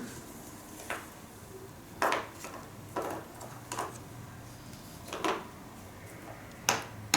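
Light knocks and clacks of small hard objects being handled and set down, about six scattered over several seconds.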